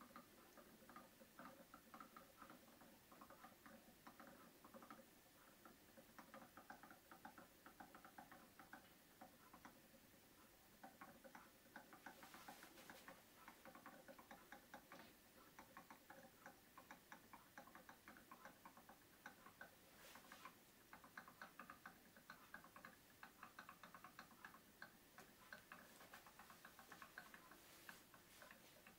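Faint, rapid, irregular crackle of ink draining by gravity from an upturned Epson 114 ink bottle into the ET-8550's ink tank.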